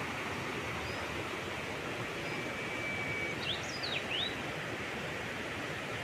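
Steady rushing of a mountain stream flowing over rocks. A bird chirps a few times in quick succession a little past halfway.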